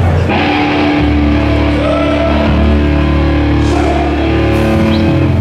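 Hardcore band's distorted electric guitars and bass playing live through the PA, holding long sustained notes.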